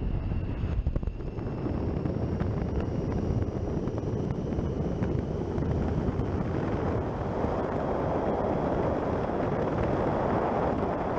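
Motorcycle riding at speed: heavy wind rush over the microphone with the Triumph Street Triple's inline three-cylinder engine running under it, the wind growing stronger in the second half.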